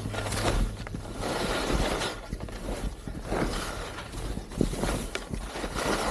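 Skis scraping and chattering over firm moguls, the hiss surging with each turn about once a second, with a few sharp clicks and a low rumble of wind on the camera microphone.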